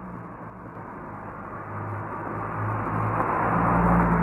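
2012 Ford Focus SEL hatchback with its rear muffler deleted, its 2.0-litre four-cylinder engine and open exhaust driving past. The engine note and tyre noise swell as the car approaches and are loudest as it passes, about four seconds in.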